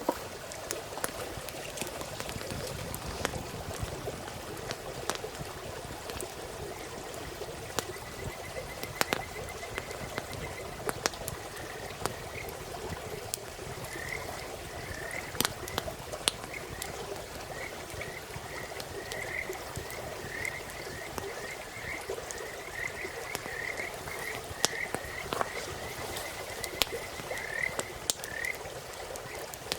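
A chorus of frogs calling steadily, joined from about eight seconds in until near the end by a higher, chirping call repeated in quick runs of notes. Scattered sharp pops of a crackling wood campfire sound throughout.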